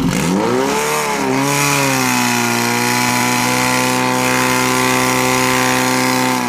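Portable fire pump engine revving up sharply, dipping briefly about a second in, then running steadily at high speed, driving water through the hoses to the nozzles.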